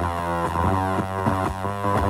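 Electric guitar played through a fuzz pedal based on the Devi Ever Hyperion: a thick, distorted tone with a run of sustained notes changing about every half second.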